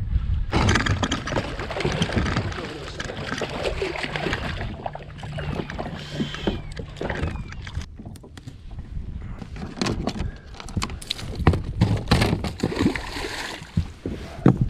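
Landing a striped bass into a small plastic boat: water splashing and sloshing, then a run of knocks and thumps as the fish flops on the carpeted deck and is handled.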